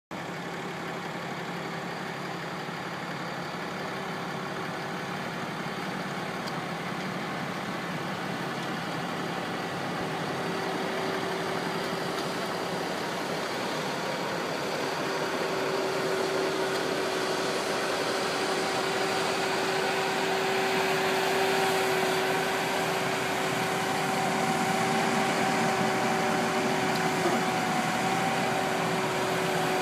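Massey Ferguson 7624 tractor's six-cylinder diesel engine running steadily as it hauls a silage wagon, a constant drone that grows louder as the tractor draws near.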